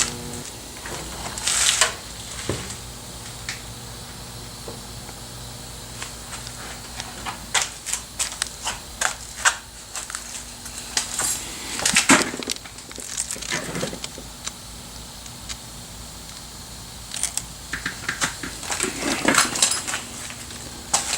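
Sheet-metal bodywork on a truck bed: scattered metallic clicks and clanks with a few short crackling bursts, over a steady low hum.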